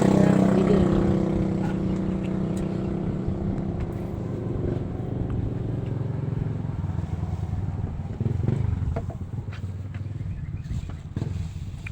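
A vehicle engine running close by with a steady hum, loudest at the start and fading gradually. A few faint clicks near the end.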